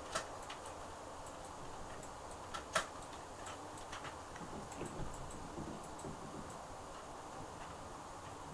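Small irregular clicks and taps of an acrylic nail brush against a plastic nail tip on a practice finger as acrylic is pressed and smoothed on, the sharpest about three seconds in, over quiet room tone.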